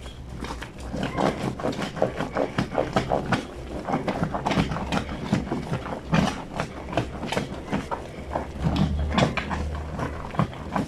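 Wet, soapy fleece sheet being scrubbed by hand against a granite washtub's washboard, in quick irregular strokes several times a second, starting about a second in.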